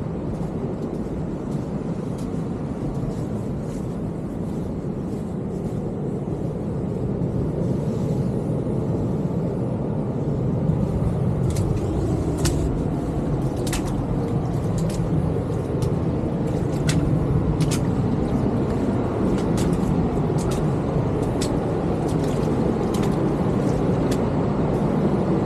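Steady low roar of ocean surf that slowly grows louder, with scattered sharp clicks over it.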